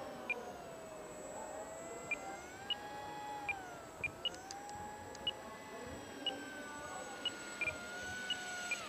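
Electric motor of a radio-controlled Eurofighter model jet whining in flight, its pitch falling and rising as the throttle is worked for thrust-vectored manoeuvres. The whine drops away sharply near the end as the throttle is cut.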